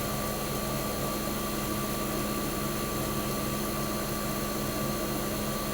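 1965 Fedders Weather Wheel 12,000 BTU window air conditioner running under load, its Tecumseh AJ reciprocating compressor giving a steady hum under the even rush of its fans. It is cooling normally: the suction line is ice cold and the discharge line hot.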